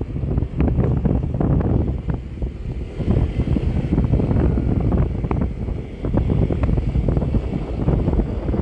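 Wind buffeting the microphone during a ride in a moving vehicle: a loud low rumble that swells and dips in gusts.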